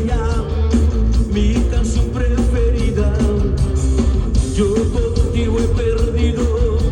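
Live rock and roll band playing loudly: heavy bass, drums with cymbal strokes, a held wavering guitar or vocal line, and singing.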